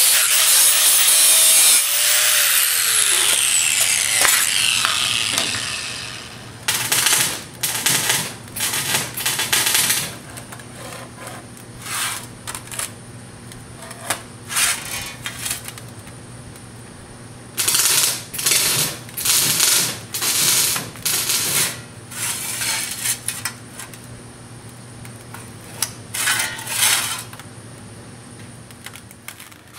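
DeWalt angle grinder with a cut-off wheel cutting through 16-gauge sheet steel, then switched off about two seconds in, its whine falling as the wheel spins down. After that come short, irregular bursts of sheet-metal pieces being shifted and scraped on a steel workbench by gloved hands.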